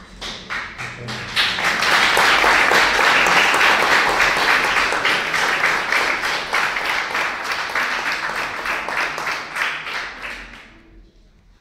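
Crowd of guests applauding: a round of clapping that builds over the first second or two, holds steady, and dies away near the end.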